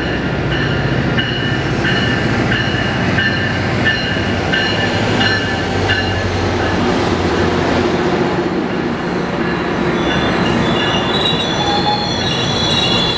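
GO Transit diesel locomotive and bilevel passenger coaches running past the platform: a loud, steady rumble of engine and wheels on rail. A high-pitched wheel squeal comes and goes at first and grows stronger and steadier about ten seconds in, as the coaches pass.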